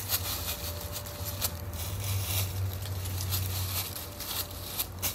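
Dry fallen leaves rustling and crackling in irregular bursts as they are thrown up and trampled, over a steady low hum.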